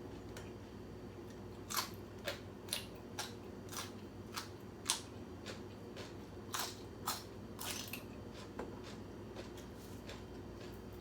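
A person eating close to the microphone: about a dozen short, crisp crunches of biting and chewing, spread over some six seconds, over a faint steady hum.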